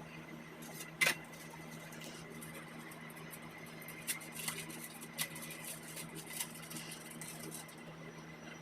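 Light handling noise from cake-decorating tools: a sharp click about a second in, then scattered lighter clicks and scrapes, over a steady low hum.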